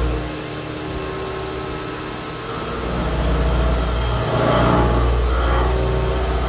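CNC mill taking a high-feed roughing cut in 304 stainless steel with a 2-inch indexable feed mill, a steady low drone with a steady mid tone above it. The low drone drops away for about two seconds shortly after the start, comes back, and dips briefly again about four seconds in.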